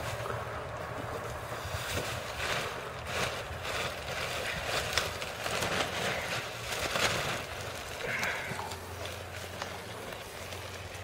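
Walker riding mower's engine idling steadily, with wind on the microphone and scattered short crackling noises.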